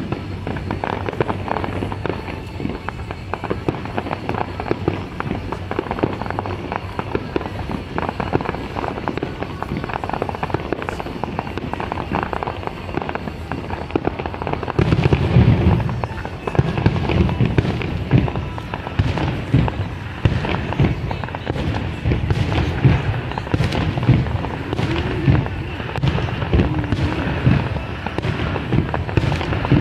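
Fireworks display going off without pause: a dense run of pops and crackles, turning to heavier, louder booms in quick succession about halfway through.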